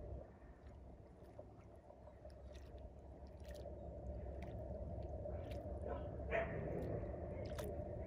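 Muscovy duck dabbling its bill in shallow river water: scattered small wet clicks and slurps, with a louder splashy dab a little past six seconds in, over a steady low background hum.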